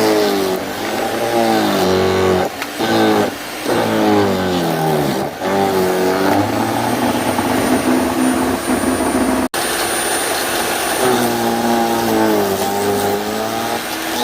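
Electric WEN portable wood chipper running loud while shredding sticks, its motor pitch repeatedly sagging under the load and climbing back up. The sound cuts out for an instant about nine and a half seconds in.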